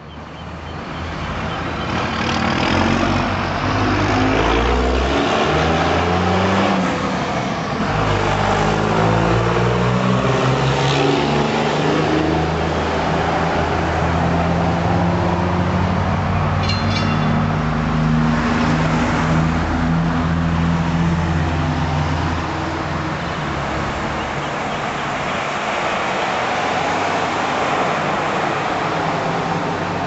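Road traffic: a motor vehicle's engine running close by, its note rising and falling as it revs, building up over the first few seconds. The engine note fades at about 23 seconds into steady street traffic noise.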